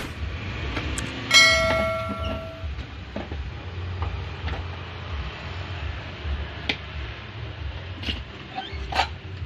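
A single bright ring starts suddenly about a second in and dies away over about a second. A few sharp clinks follow near the end, over a steady low rumble.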